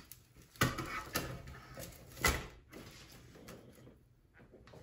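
Dry grapevine wreath being handled and set back down on a wooden table: a few sharp knocks with twiggy rustling between them, in the first two and a half seconds, then only faint handling.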